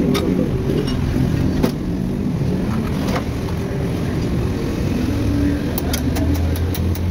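A steady low rumble of a running motor vehicle engine, with scattered light metallic clicks, a quick run of them near the end.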